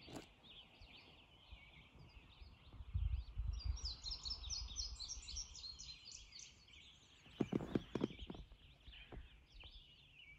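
Several songbirds singing, with a rapid repeated trill a few seconds in. A low rumble comes in briefly around the same time, and a few soft knocks come near the end.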